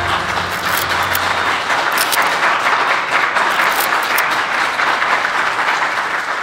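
A crowd applauding, many people clapping steadily.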